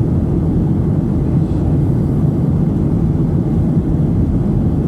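Steady low rumble of a jet airliner's engines and airflow heard from inside the passenger cabin.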